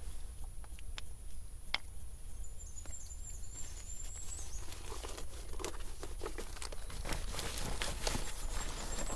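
Handling noise of packing gear: rustling and crinkling of cloth and a nylon backpack, with light clicks and knocks of the wooden bow drill pieces, busier in the second half.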